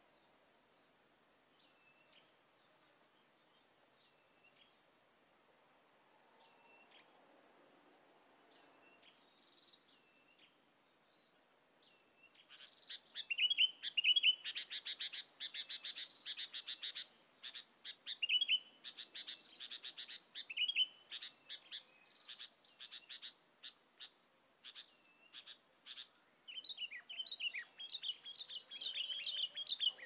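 Sooty-headed bulbuls calling: faint, short, repeated calls at first, then from about twelve seconds in loud, rapid chattering calls mixed with fast clicking notes.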